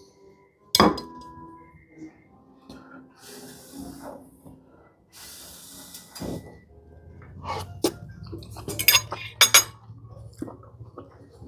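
A fork clinking and scraping on a dinner plate while scooping rice to eat: one sharp clink about a second in, then softer scraping, and a run of quick clinks in the second half.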